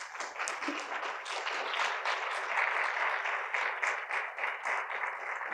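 Audience applauding: many hands clapping in a dense, steady patter that starts suddenly.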